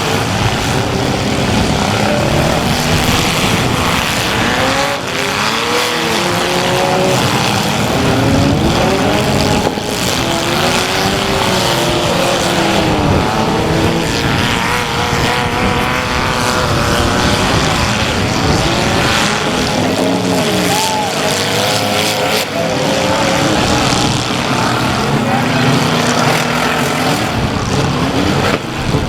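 Several compact-car engines revving up and down over and over, their pitch rising and falling at once, with a few sharp thuds of impacts.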